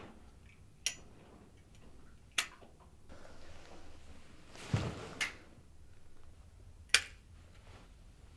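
Four sharp, short clicks spaced one and a half to three seconds apart, with a duller thump and a brief rustle just before the third click.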